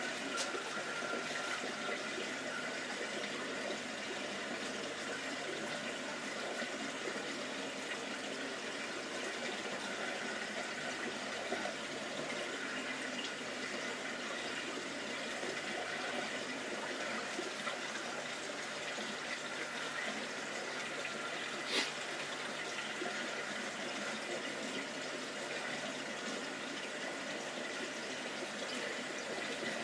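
Steady bubbling and splashing of aquarium aeration: air-stone bubble columns and an air-lift filter running in a goldfish tank. One short sharp click about two-thirds of the way through.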